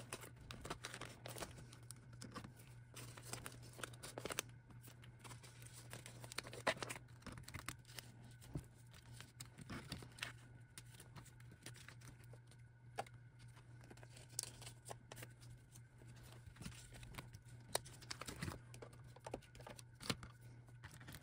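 Photocards in plastic sleeves being slid into a clear plastic binder pocket page: faint plastic crinkling and rustling with scattered small clicks and taps, over a steady low hum.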